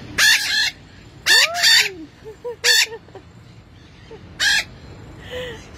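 Wild green parakeets screeching, a racket of four loud, harsh calls about a second apart with softer chattering between them.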